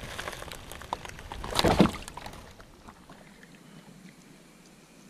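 Old Town kayak launched off a muddy bank into the water: knocks and scraping of the hull and gear, with a loud rush of hull and water about one and a half seconds in. After that it goes quiet, with only faint water noise as the kayak floats.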